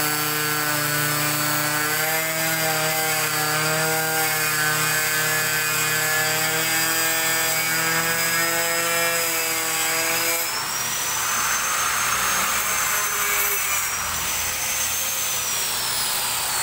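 Handheld angle grinder running under load against 5 mm acrylic sheet, a steady whine over a lower grinding tone. About two-thirds of the way through it comes off the work and the whine rises, then near the end it is switched off and the whine falls as the disc spins down.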